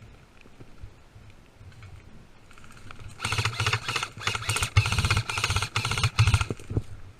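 Airsoft electric gun firing full-auto: rapid mechanical clicking over a motor buzz, in several bursts lasting about three and a half seconds, starting about three seconds in.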